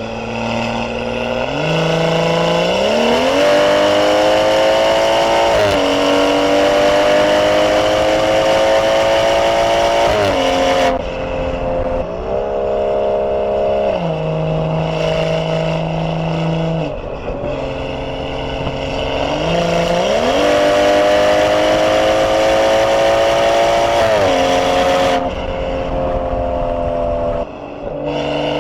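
BMW B58 turbocharged inline-six in a 440i, exhaust running through a catless downpipe, pulling under acceleration. The engine note climbs in pitch, drops at several gear changes and holds steady between pulls.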